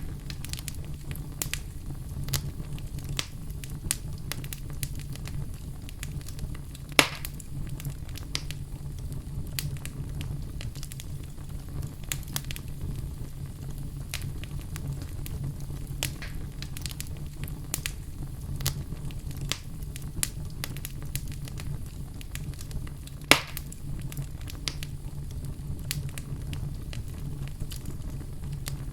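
Wood fire burning in a fireplace: a steady low rumble of the flames with frequent small irregular crackles and two louder pops, about seven seconds in and near the end.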